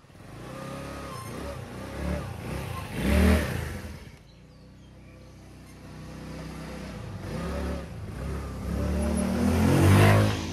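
Motor scooter engine revving and pulling away, its pitch climbing with each opening of the throttle; it is loudest about three seconds in and again near the end.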